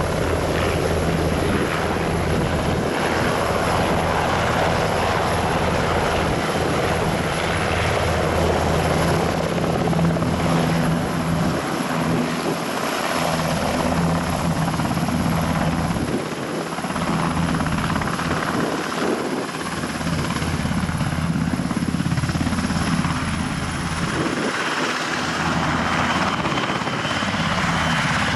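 Airbus NH90 TTH helicopter hovering low and setting down: steady rotor beat over the high whine of its twin turboshaft engines.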